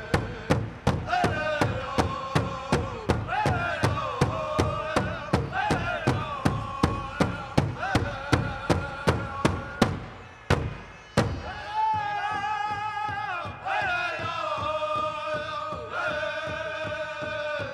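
Pow wow drum group: a big drum struck in a steady beat, about two and a half strikes a second, under high wavering group singing. About eleven seconds in, the drum stops while the singing carries on.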